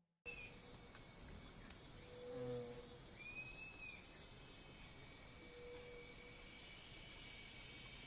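Night swamp ambience: crickets and other insects chirring steadily, with a few short low calls every few seconds and one brief high whistle about three seconds in.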